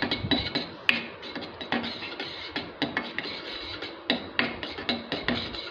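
A spatula scraping and stirring melting butter around a metal wok-shaped pan: a run of short, irregular scrapes and taps against the pan.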